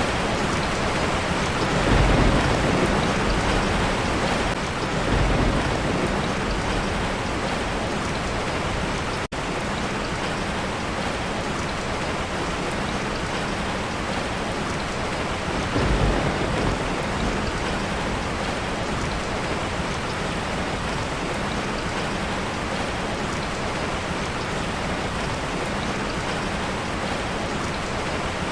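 Steady rain pouring down, with low rolls of thunder swelling up about 2 seconds in, again around 5 seconds, and near 16 seconds. The sound cuts out for an instant about 9 seconds in.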